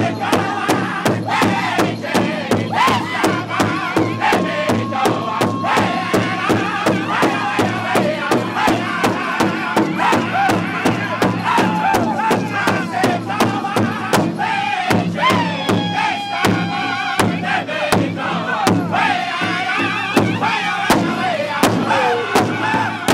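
Powwow drum group singing a jingle dress dance song, many men's voices in high, gliding unison over a large drum struck together in a steady beat, about two beats a second.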